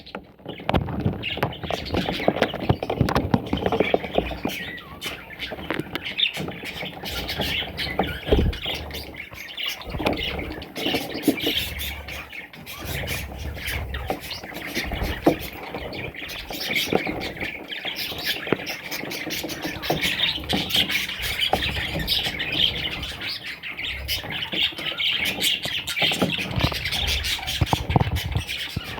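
Parrots chattering and squawking, many short calls overlapping without a break.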